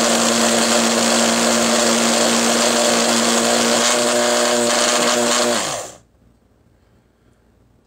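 PowerXL Grind & Go coffee maker's built-in grinder motor running steadily while grinding whole coffee beans, then dropping in pitch as it spins down and stopping about six seconds in.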